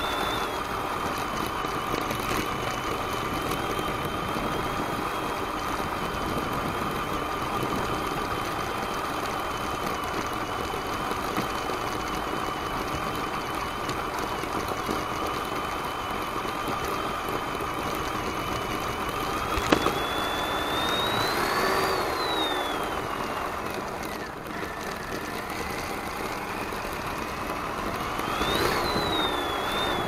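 Axial SCX10 Deadbolt RC crawler's electric motor and gear train whining steadily as it crawls along. About two-thirds of the way in there is a sharp click, then the whine rises in pitch and falls back, and it does so again near the end.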